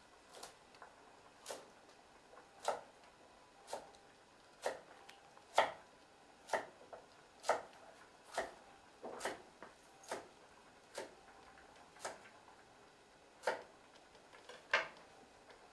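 Kitchen knife chopping on a cutting board in slow, separate strokes, about one cut a second.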